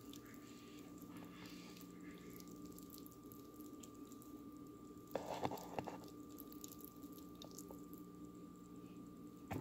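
Moist cooked potato pasta clumps shifting in a colander: faint scattered clicks and soft wet sounds, with one louder burst lasting about a second a little past halfway. A steady low hum sits under it throughout.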